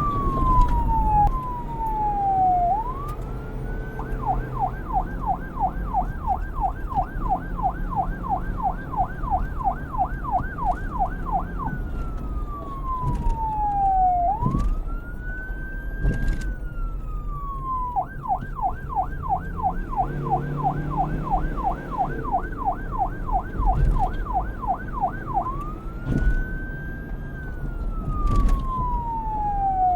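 Police car siren switching between a slow wail, which rises and then falls in one long glide, and a fast yelp of about four sweeps a second. It yelps twice for several seconds each time, over a steady low rumble.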